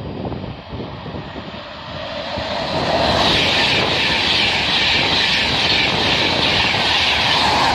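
A train passing at speed on the main line: a rushing of wheels on rail and air that builds from about two seconds in and then holds loud and steady.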